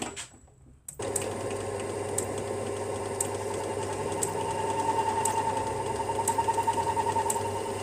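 A power drill starts suddenly about a second in and runs steadily, boring a 16 mm wood spade bit into aluminium; the cut takes on a fast pulsing in its second half.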